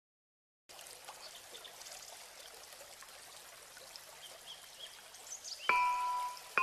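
Soft, steady running water, a trickling stream sound, with a few faint high chirps. About a second before the end, bright glockenspiel-like chime notes begin.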